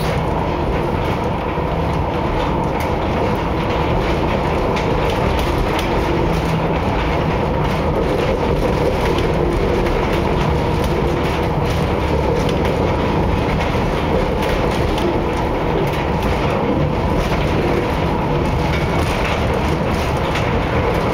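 Funicular car running steadily down its track: a continuous rumble of steel wheels on rails, with a steady faint whine and light scattered clicks.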